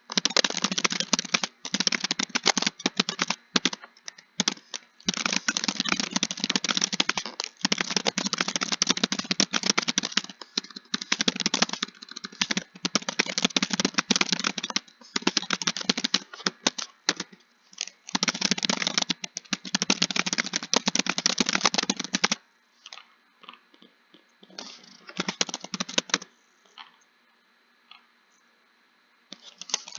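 Fast typing on a computer keyboard, keys clattering in quick continuous runs. Late on it thins to a few scattered keystrokes with short pauses, then fast typing starts again at the very end.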